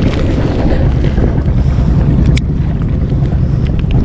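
Steady low rumble aboard a small inflatable boat at sea, with a single sharp click about two and a half seconds in.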